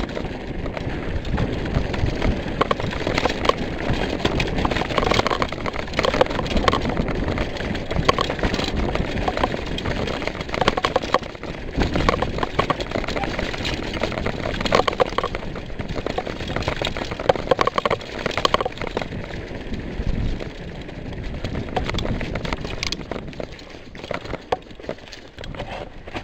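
Full-suspension mountain bike rolling fast over a rough dirt trail: tyres crunching and a constant clatter of knocks and rattles from the bike, easing off near the end.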